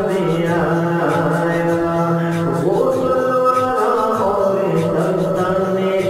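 Background music: a voice chanting in long held notes that slide from one pitch to the next.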